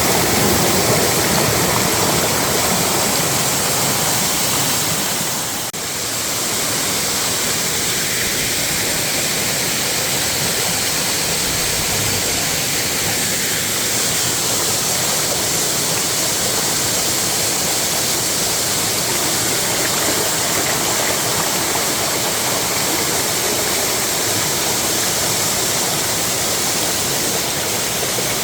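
Waterfall: a steady, loud rush of falling water, with a brief dip in level about six seconds in.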